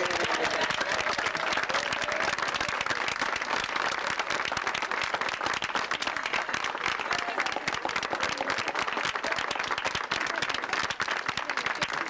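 A crowd of guests applauding: dense, steady hand-clapping that goes on without a break.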